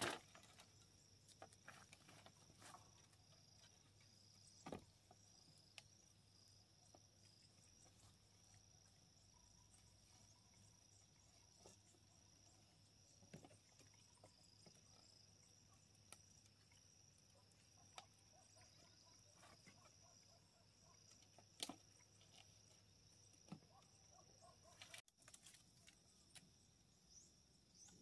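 Faint forest insects chirring in a steady, pulsing high note, with a few soft scattered clicks and taps.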